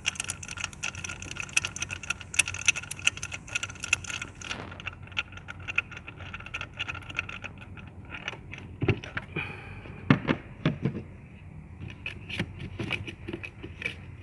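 Ratchet and spark-plug socket clicking rapidly as a spark plug is unscrewed from the misfiring cylinder of a V8, then slower metallic clicks and a few knocks of tools against the engine about nine to eleven seconds in.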